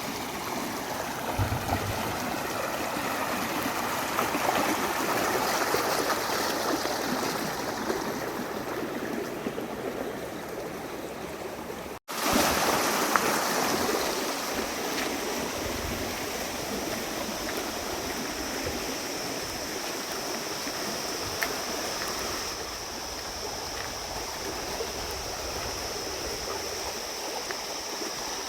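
Steady rush of a flowing stream, with a short break in the sound about twelve seconds in.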